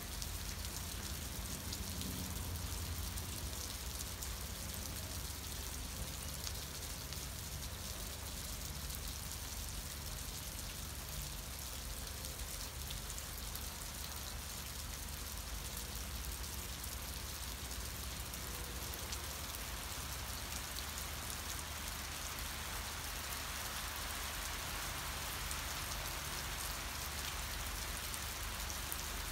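Steady rain falling, a constant patter and hiss with no single drops or events standing out, over a low steady rumble.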